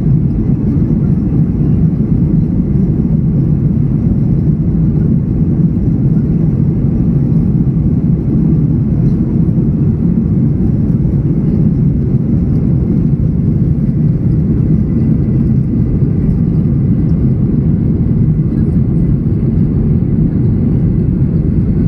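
Boeing 737-800's CFM56-7B jet engines at takeoff power, heard inside the cabin over the wing during the takeoff roll: a loud, steady, deep roar.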